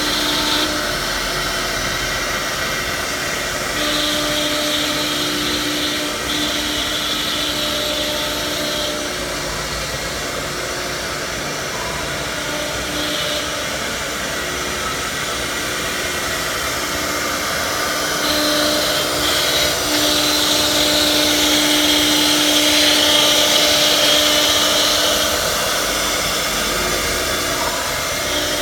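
Four-spindle CNC wood router running, a steady machine noise with spindle whine that rises and drops out every few seconds as the spindles cut, and it gets louder in the last third.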